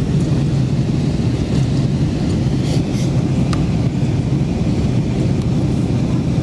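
Steady low rumble of engine and airflow noise inside the cabin of an Airbus A321-200 in flight, heard at a window seat. A few faint clicks come about three seconds in.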